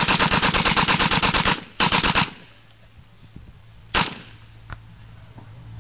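MP 40 submachine gun firing on full automatic: a long burst of rapid, evenly spaced shots, then a short burst. One more lone shot comes about four seconds in.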